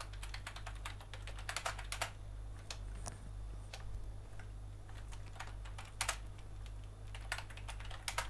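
Typing on a computer keyboard: irregular bursts of keystrokes, over a steady low hum.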